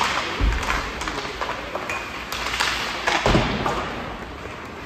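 Ice hockey play in a rink: sharp clacks of sticks and puck, with two heavy thumps against the boards, about half a second in and just after three seconds.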